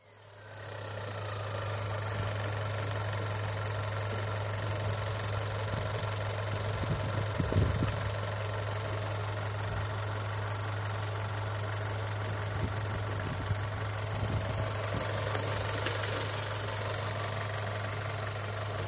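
Volkswagen 1.4 TSI (CAXA) turbocharged four-cylinder petrol engine idling steadily.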